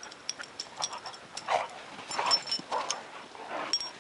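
A dog whimpering in short, high, thin whines, mixed with a run of sharp clicks and a few crunching sounds.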